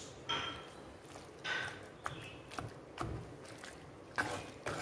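Spatula stirring thick, wet chicken masala in a clay pot: a run of irregular scrapes and squelches, about seven strokes.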